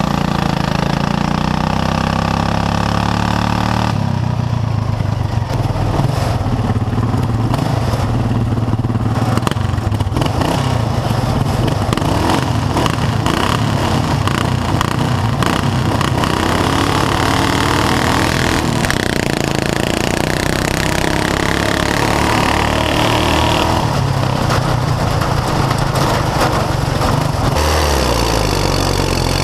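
Lawn tractor engines running loud and continuous. They rev higher and rougher from about four seconds in, then settle back to a steadier, lower run near the end.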